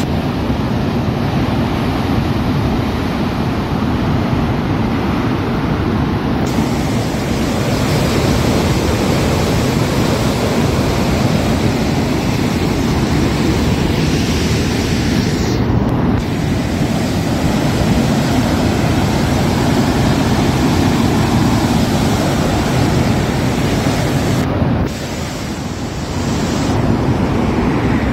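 Steady, loud rush of turbulent water churning out below a dam barrage, mixed with wind buffeting the microphone. The sound changes abruptly twice, about halfway through and near the end.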